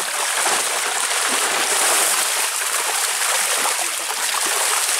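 Water splashing and churning steadily as a net crowded with large fish is drawn in and the fish thrash at the surface.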